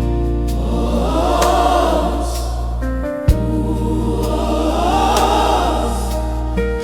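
Gospel choir singing over a steady bass accompaniment, the voices swelling in two long phrases with a brief break midway.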